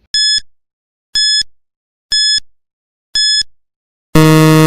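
Quiz countdown timer sound effect: four short high-pitched beeps, one a second, then a longer, lower buzz about four seconds in that signals time is up.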